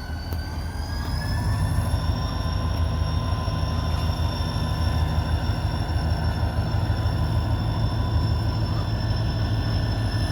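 Freight train rolling past: a steady low rumble with several thin, high whining tones that rise slightly in the first second or two and then hold steady.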